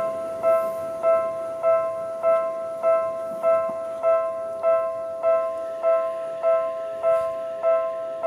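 Japanese level-crossing warning bell: an electronic ding repeating evenly, about two strikes a second, while the crossing stays closed.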